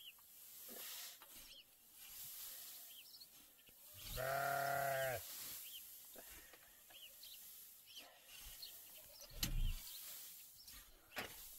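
Pitchfork tossing a heap of chopped straw, a faint scraping and rustling, with one long bleat about four seconds in and a sharp thump a few seconds before the end. Faint short chirps recur throughout.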